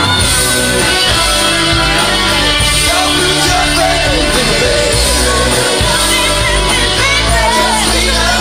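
A song's karaoke backing track with a voice singing over it in wavering, gliding notes.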